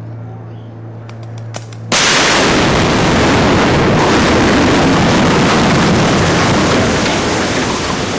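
Demolition charges on a steel truss bridge firing: a few sharp cracks about a second in, then a sudden, very loud blast just before two seconds that keeps rumbling for several seconds and eases near the end.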